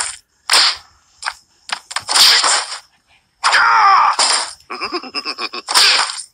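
Cartoon slapstick sound effects: a quick run of short, sharp whooshes and hits as luggage is flung. Then a character's strained yell and a shaky, trembling groan, with a final hit near the end as a box lands on him.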